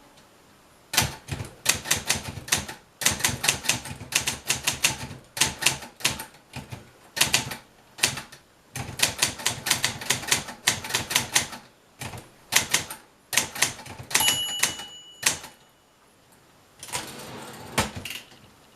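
Brother Opus 901 all-metal manual typewriter typing in uneven runs of sharp key strikes. About two thirds of the way through, the carriage's margin bell rings once, a bright ring that hangs for about a second and warns that only a few spaces are left on the line. Near the end comes a longer rattling sweep, the return lever advancing the paper and pushing the carriage back to the margin.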